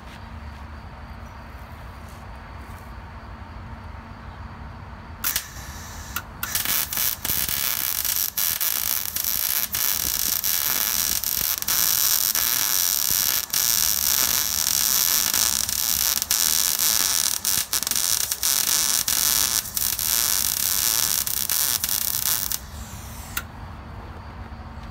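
Wire-feed welder arc crackling as a bead is run on a steel bracket: a short burst about five seconds in, then a steady crackling run of about sixteen seconds that stops, and one more brief burst near the end.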